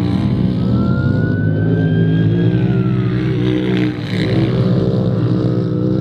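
Side-by-side (UTV) race car's engine running hard, its pitch wavering up and down with the throttle, with a short dip in level about four seconds in.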